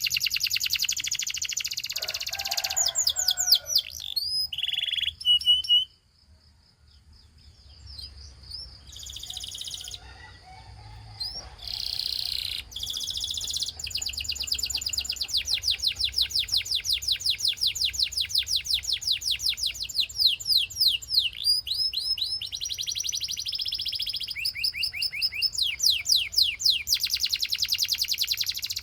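Gloster canary singing in fast rolling trills of rapidly repeated high notes. A drawn-out thin whistle comes about five seconds in, during a brief lull, and a long unbroken trill follows from about halfway through.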